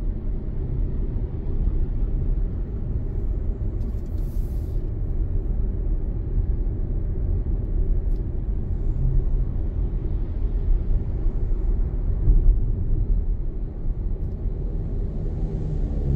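Steady low road and engine rumble of a car driving through city traffic, with a brief high hiss about four seconds in.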